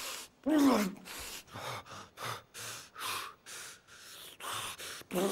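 A person gasping and panting hard in quick, ragged breaths, about two a second, with a strained cry whose pitch falls about half a second in.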